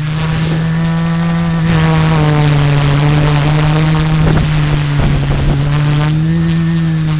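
Multirotor drone's LD Power MT4010 475 KV brushless motors and 13 × 5.5-inch carbon propellers buzzing steadily, heard from the onboard camera. The pitch lifts slightly about six seconds in.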